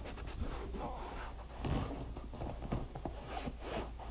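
Microfiber towel rubbing conditioner into a motorcycle's seat: soft, irregular rubbing strokes, over a faint steady low hum.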